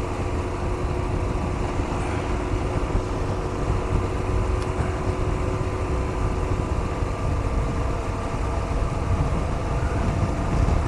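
2005 BMW R1200 GS boxer-twin engine running steadily while the bike is ridden on the road, with heavy wind rumble on the microphone. Some of the engine's steady tones fade out about seven seconds in.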